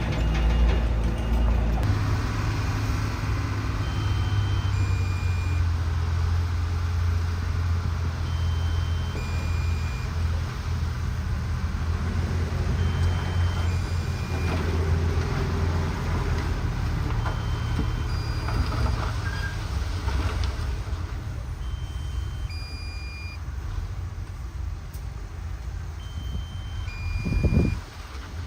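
Heavy earthmoving machine's diesel engine running steadily under a reversing alarm. The alarm sounds two short beeps, a higher then a lower note, repeating about every four and a half seconds. Near the end there is a brief low surge.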